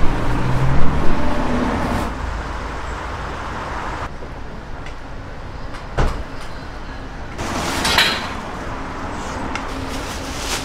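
Street-market ambience: a vehicle's rumble passing in the first two seconds, a single sharp knock about six seconds in, and a rising swish near eight seconds.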